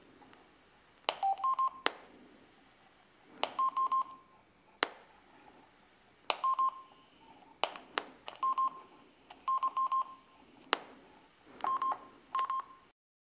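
Yaesu FT-60 handheld radio giving clusters of two or three short electronic beeps with sharp clicks as the speaker-mic's 3.5 mm plug is wiggled in its jack. The loose, fragile connection is making false contact, so the radio registers spurious key and transmit signals and throws an error.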